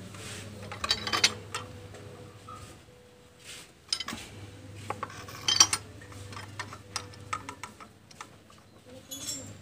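Metal hand tools clinking and knocking at irregular intervals during a spark plug change in the engine bay, over a faint steady hum.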